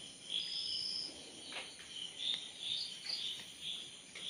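Crickets chirping faintly at night: a short high trill about half a second in, then short high chirps repeating every few tenths of a second, with a couple of faint ticks.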